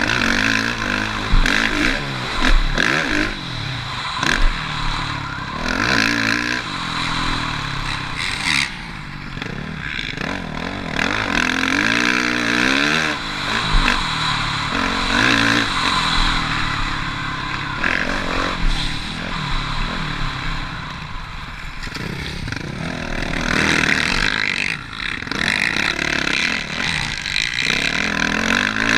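Suzuki RM-Z450 motocross bike's single-cylinder four-stroke engine under hard riding. The revs climb and fall again and again as the throttle is opened and shut through the gears, with a rough, clattering edge.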